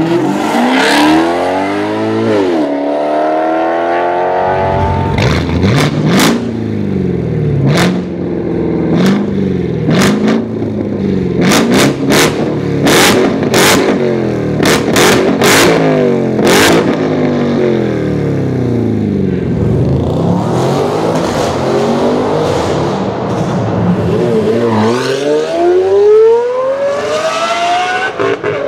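A run of supercar exhausts. First a widebody Maserati GranTurismo's V8 revving as it pulls away. Then a Chevrolet Corvette C7's V8 is blipped again and again through the middle, with a dozen or so sharp exhaust cracks and pops. Near the end a Lamborghini Murciélago's V12 accelerates with its pitch climbing.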